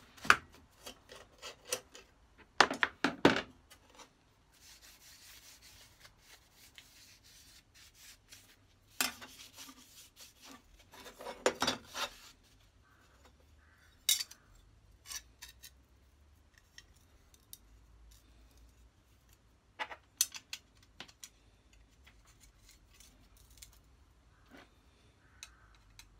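Steel parts of an antique Stanley Bailey bench plane being handled and screwed together with a screwdriver: clusters of metal clicks and scrapes, with a stretch of soft rubbing about five to eight seconds in and a few single clicks later.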